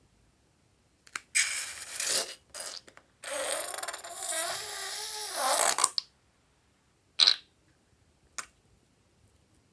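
Air escaping from a rubber balloon: first a short hiss, then a longer buzzing, fart-like squeal from the stretched neck, wavering in pitch for about three seconds. Two short sharp clicks follow.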